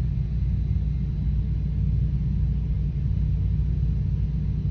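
Steady low rumble with a faint constant hum above it.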